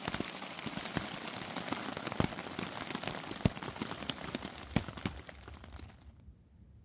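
Steady rain pattering on a hammock's rain tarp, heard from inside, with single heavier drops tapping on it; it fades away about six seconds in.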